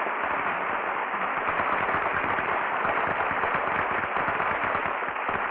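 Studio audience applauding at the end of a musical number, heard on a 1949 radio broadcast recording with a muffled top end.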